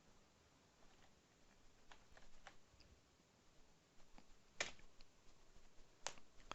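Faint computer keyboard keystrokes: a few light taps about two seconds in, then two sharper single key presses later on, about a second and a half apart.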